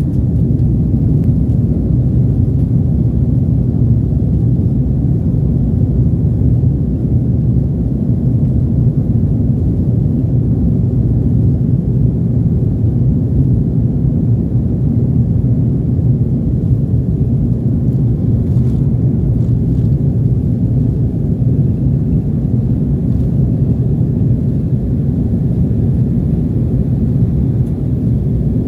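Airliner cabin noise during a fast run along the runway: a steady low rumble of the jet engines and the wheels on the pavement, heard from inside the cabin.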